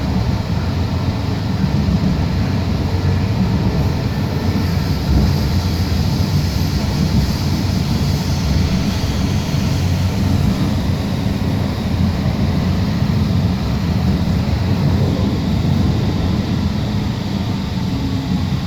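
Inside an Alstom Citadis Spirit light-rail car of Ottawa's O-Train Confederation Line running between stations: a steady rumble of wheels on rails and running gear. A faint high whine rises in for a few seconds around the middle.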